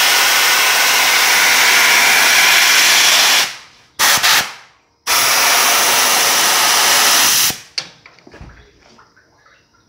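Compressed-air blow gun blasting the wet edge of a freshly polished stone strip: a loud, even hiss that starts and stops sharply, in three blasts, a long one, a brief one, then another of a few seconds, before it falls quiet.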